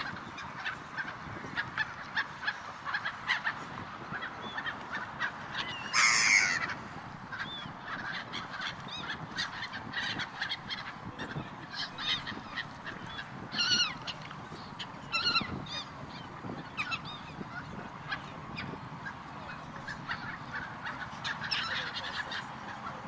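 A flock of gulls calling, many short cries in quick succession, with a few louder single calls standing out among them.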